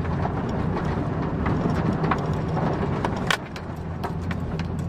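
Pickup truck in four-wheel drive heard from inside the cab, its engine running steadily as it drives through a soft, muddy patch, with scattered clicks and knocks from the cab and underbody; the sharpest knock comes about three seconds in.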